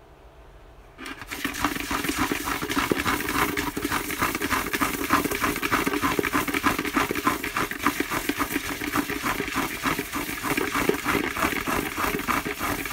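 Handwritten paper name slips being shaken and stirred inside a plastic bucket: a dense, rapid rustling rattle that starts about a second in and keeps going.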